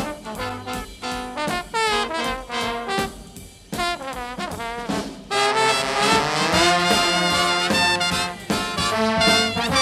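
Background jazz music led by brass instruments, with sliding notes about halfway through.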